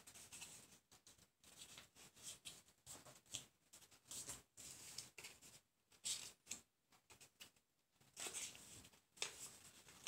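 A sheet of paper rustling in short, irregular bursts as hands fold it and press the creases flat.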